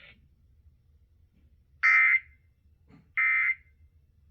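Emergency Alert System end-of-message data tones: two short, harsh digital bursts about a second and a half apart, the first about two seconds in. Sent over the radio, they mark the end of the alert.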